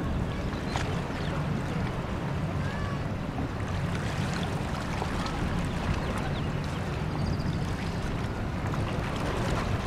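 Steady waterfront ambience on a bay: an even low rumble of wind on the microphone, boats and water, with a few faint high chirps.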